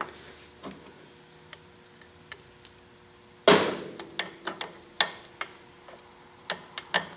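Small metal clicks and taps as the cast-iron thread chasing dial of a South Bend 9-inch lathe is handled and fitted onto the carriage, with one louder metal knock about halfway through. A faint steady hum runs underneath.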